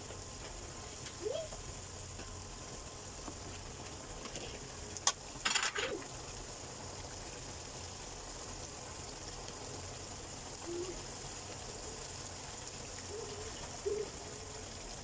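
Thick chicken kofta curry simmering in a wok: a steady hiss with a few short low bubbling blips, and a brief clatter about five seconds in.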